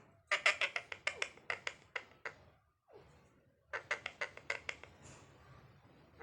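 A parrot making two quick runs of short, sharp chirping calls, about five a second, with a pause between the runs.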